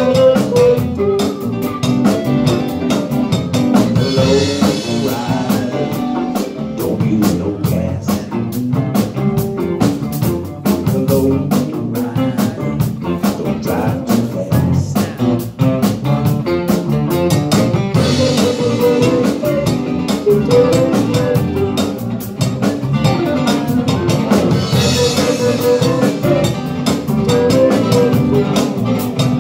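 Live band playing: acoustic and electric guitars over a drum kit keeping a steady beat, with cymbal washes swelling up a few times.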